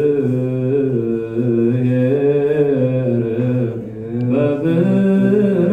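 Ethiopian Orthodox liturgical chant by men's voices, long held notes stepping between a few pitches. A short break comes near four seconds, then the chant resumes on a higher note.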